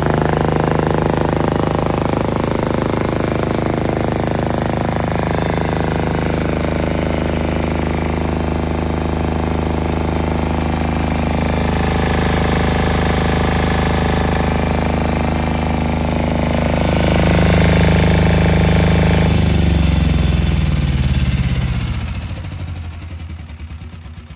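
Mase Mariner 3500 3.5 kVA marine diesel generator running steadily. About twenty seconds in it is shut down: the pitch drops and it runs down to a stop near the end.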